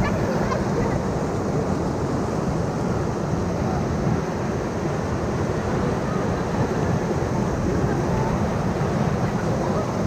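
Loud, steady rushing of whitewater around and into a rubber raft held surfing in a river hole, the rapid's roar unbroken throughout.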